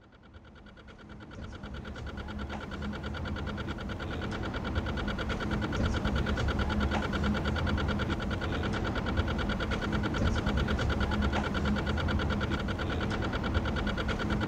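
Steady engine drone fading in over the first few seconds: a low rumble under a constant high whine.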